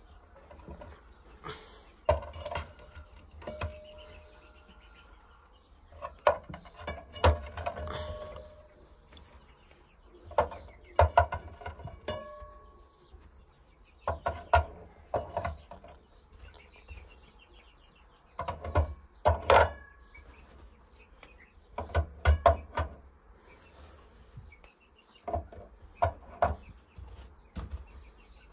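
Irregular knocks and clatter of hands gathering hen eggs in a chicken coop, with a few short chicken calls among them.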